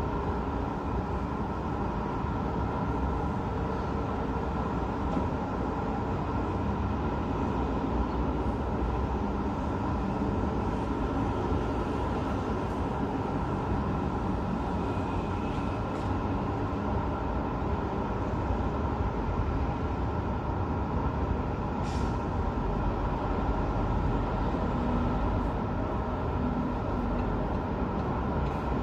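Steady hum of road traffic heard from high above the streets, cars and buses passing without a break. A short hiss cuts in about three-quarters of the way through.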